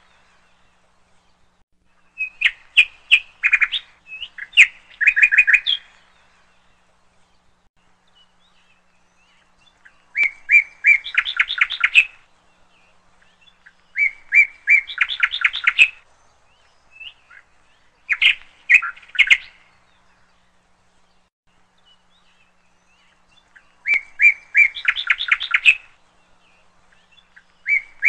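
A songbird singing short phrases, each a few sharp chirps running into a quick trill, repeated about six times with pauses of a few seconds between.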